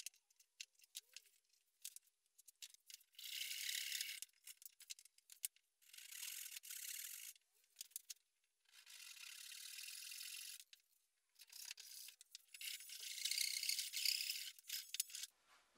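Pencil drawing lines along pine boards: four scratchy strokes of one to two seconds each, the longest near the end. Light clicks and taps come in between as the boards and tools are handled.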